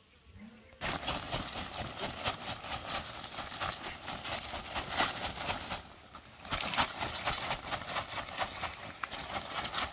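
Dry chicken-manure compost mixed with wood shavings pouring out of a woven plastic sack onto bare soil: a dense rustling patter that starts about a second in, breaks off briefly around the middle, then resumes.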